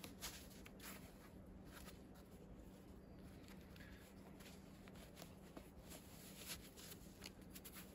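Near silence: faint rustling and soft clicks as rubber-coated work gloves are pulled on, over a faint low hum.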